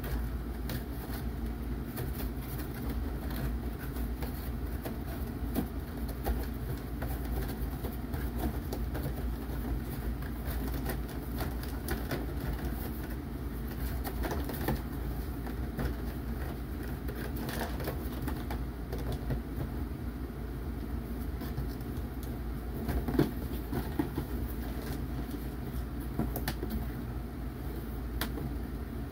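Plastic toy parts being handled: scattered light clicks and knocks over a steady low hum, with one sharper knock about three-quarters of the way through.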